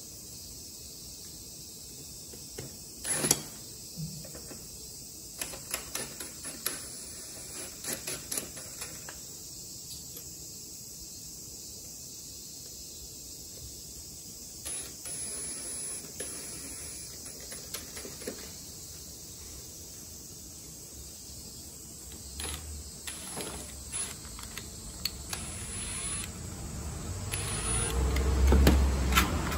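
Scattered sharp clicks and knocks over a steady high hiss, the loudest knock about three seconds in; the sounds grow louder and fuller near the end.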